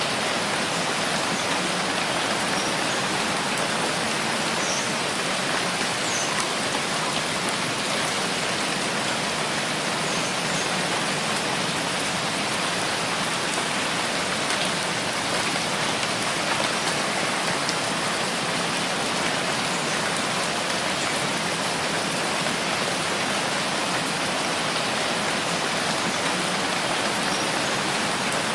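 Steady rainfall: an even, unbroken hiss of many drops landing, at a constant level.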